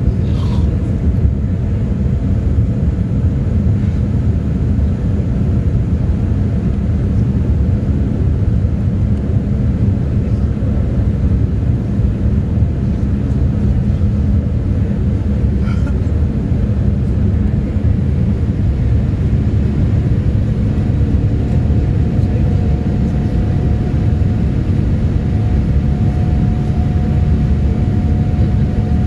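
Steady low rumble inside the cabin of a Boeing 787-8: its Rolls-Royce Trent 1000 engines and the airflow during the climb, with a few steady hums on top. A faint higher hum comes in about twenty seconds in.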